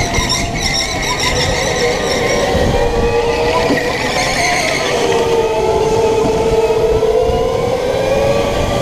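Racing go-kart's electric motor whining, its pitch dipping and rising with speed through the corners. Tyres squeal and scrub at times as the kart pushes (understeers).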